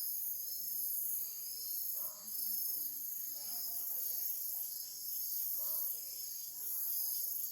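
Night chorus of crickets and other insects: a steady, high-pitched trilling with no pause.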